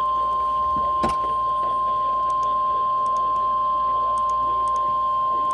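NOAA Weather Radio 1050 Hz warning alert tone: a single steady, high pure tone at an even level. It signals a warning-level alert, here a severe thunderstorm warning.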